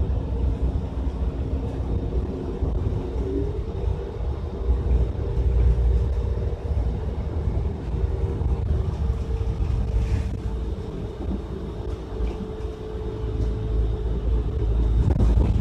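City bus engine and road rumble heard from inside the moving bus, with steady humming tones from the drivetrain, one of which steps up in pitch about three seconds in.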